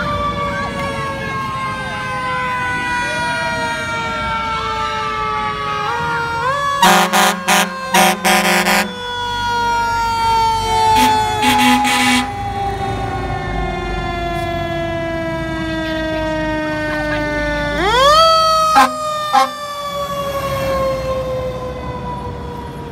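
Fire truck siren, wound up quickly and then sliding slowly down in pitch for many seconds, twice over. Clusters of short truck-horn blasts come about seven seconds in, again around eleven to twelve seconds, and near nineteen seconds.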